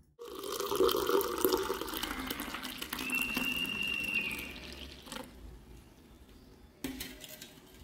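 Pomegranate juice pouring in a stream into a small clay cup, splashing and frothing, until the pour stops about five seconds in. A short knock follows near the end.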